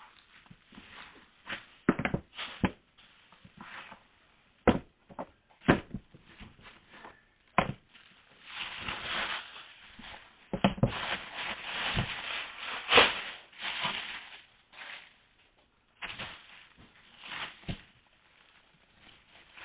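A package being unboxed and its contents handled: sharp taps and knocks in the first half, then longer stretches of packaging rustling and crinkling.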